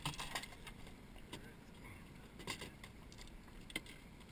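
Light clicks and clinks of fishing tackle being handled in a boat, a few scattered strikes over a low steady rumble.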